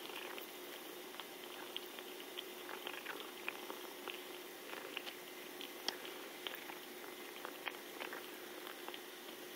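A cat licking and chewing dried catnip off a carpet, close up: a run of small, irregular clicks over a faint steady hiss.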